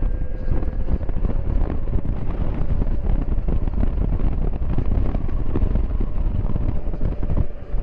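Wind buffeting the microphone and road rumble from the Zero DSR-X electric motorcycle riding a dirt road, with a faint steady whine from its electric drivetrain. Irregular clunks and rattles run through it, which the rider puts down to the luggage racks or the tag assembly.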